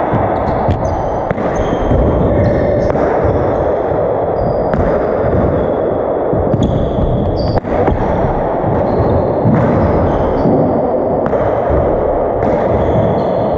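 Paddleball rally in an enclosed court: a ball smacking off paddles and the walls with echoing cracks at irregular intervals, and sneakers squeaking briefly on the hardwood floor, over a steady loud rushing background.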